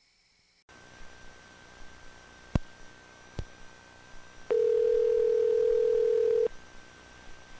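Telephone line audio: a faint hiss with two clicks, then one steady two-second ring of a telephone ringback tone.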